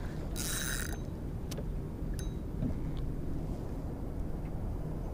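Spinning reel in a fight with a catfish: a short buzz about half a second in as the drag gives line to the pulling fish, then a few light clicks from the reel, over a steady low rumble.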